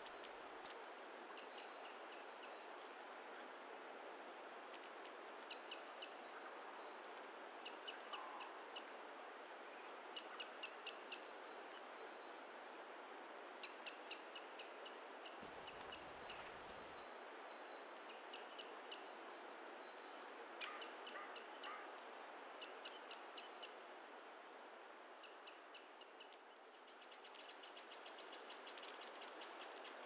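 Faint countryside ambience: a steady hiss with small birds chirping in short repeated phrases every couple of seconds, and a faster run of chirps near the end.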